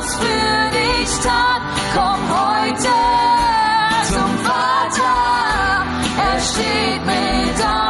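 German Christian worship song: a singer over a band backing, the sung line bending in pitch with a long held note about three seconds in.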